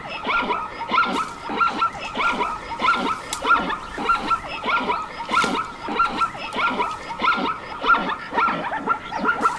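An animal giving rapid, repeated short yipping calls, about two or three a second, which stop abruptly at the end.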